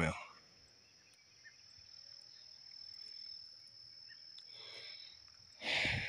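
Steady high-pitched drone of insects such as crickets. From about two seconds in, a rustling, shuffling noise builds and fades, like footsteps through dry twigs and brush.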